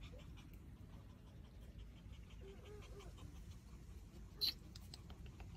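Faint rustling and small ticks of leaves as a Pomeranian noses into a vine hedge, over a low steady rumble, with one sharper click about four and a half seconds in.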